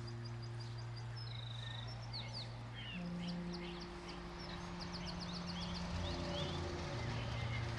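Small songbirds chirping and trilling, many short high calls and a quick trill. Under them runs a low steady hum of held tones that shifts in pitch twice.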